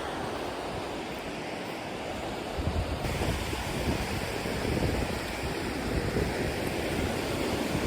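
Wind gusting against the microphone over a steady rushing noise, the low buffeting swelling about two and a half seconds in and again near the end.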